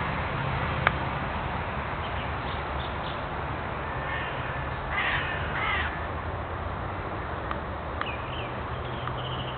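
Crows cawing, with a loud run of harsh calls about five seconds in and fainter calls before and after, over a steady low background hum.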